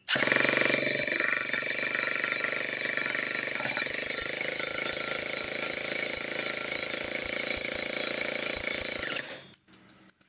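Handheld electric starter tool with a long shaft turning a nitro model engine over, running steadily for about nine seconds and then stopping suddenly. The engine is being cranked for a compression test.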